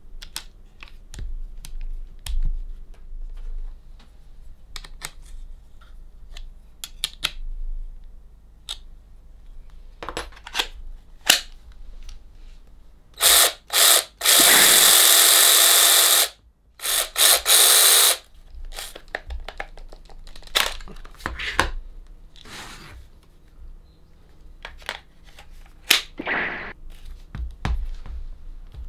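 Drillpro cordless mini chainsaw's electric motor and chain run unloaded in four trigger bursts about halfway through: a short one, one of about two seconds, then two short ones. Around them, scattered clicks and knocks of the saw being handled.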